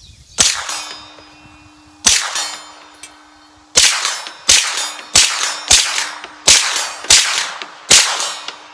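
Suppressed Hi-Point 995TS 9mm carbine fired nine times: three spaced shots, then six in quicker succession about half a second apart, each a sharp report with a short tail. The rounds are not subsonic from the 16-inch barrel, so the suppressor quiets the shots without removing the crack, and the carbine cycles every round.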